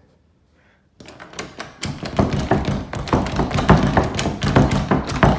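Rapid, uneven knocking on a closed wooden interior door, many knocks a second, starting about a second in.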